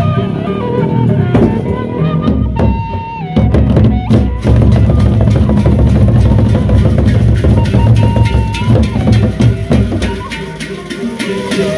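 A Sasak gendang beleq ensemble playing: large double-headed barrel drums beaten with sticks in a fast, dense rhythm, with a few held melodic notes above. The drumming grows much louder and heavier about three and a half seconds in.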